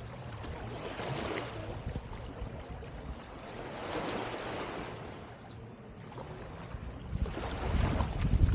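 Small waves washing onto a sandy beach, the surf rising and falling in swells. Near the end, wind buffets the microphone with a loud low rumble.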